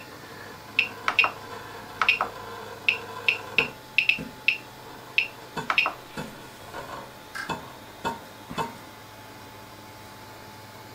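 3D printer's stepper motors driving the print head in short moves while it traces the skirt at the start of a print: a quick series of brief pitched chirps and clicks over a steady low hum. The moves stop about nine seconds in, leaving only the hum.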